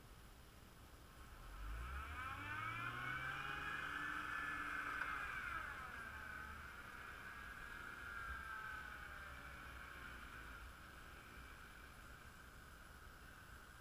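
Jeep engine revving hard under load, heard from some distance: the pitch climbs from about a second and a half in, holds for a few seconds, then eases off and fades. The revving comes as a tow strap pulls a stuck Jeep Wrangler back out of the snow.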